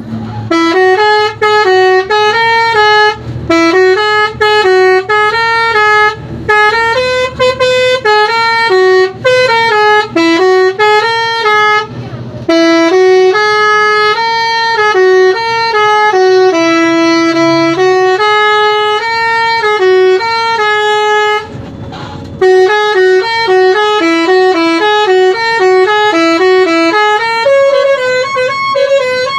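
An Indonesian bus's telolet horn, a multi-tone musical air horn, playing a tune in quick stepped notes. It is loud and nearly continuous, with two short breaks about twelve and twenty-two seconds in where only a low rumble is left.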